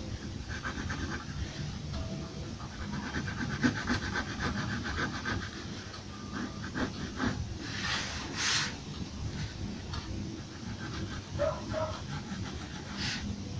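A pencil scratching on paper in quick, rhythmic shading strokes over a steady low background hum, with a few brief louder hissy sweeps.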